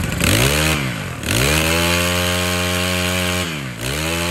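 Makita four-stroke brush cutter engine running at high revs. Its speed rises, drops sharply about a second in, picks back up and holds, then dips briefly again near the end before recovering.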